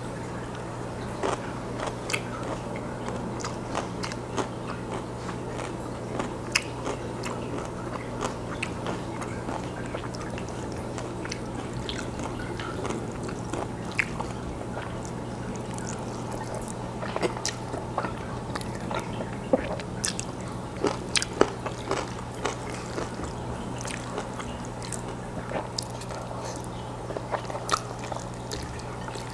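Close-miked chewing and wet mouth sounds of someone eating jjajangmyeon (black bean noodles): irregular smacks and sharp clicks throughout, a little denser and louder in the second half, over a steady low hum.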